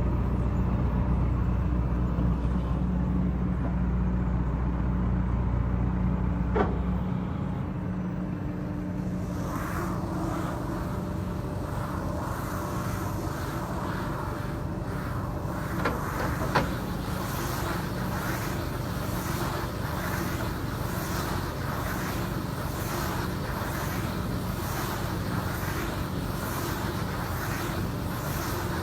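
Silage baling machine running with a steady engine hum. From about nine seconds in, a rhythmic swish repeats about once a second, with a couple of sharp knocks.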